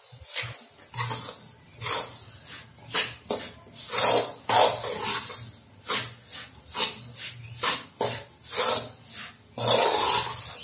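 A spoon and hand rubbing and scraping damp rice flour against the inside of a metal kadai while it is mixed with hot water for puttu, in irregular rough strokes, about one or two a second.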